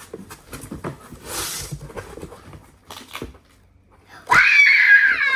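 Soft knocks and rustling of a cardboard box being opened, then about four seconds in a young girl's loud, high-pitched squeal lasting about a second.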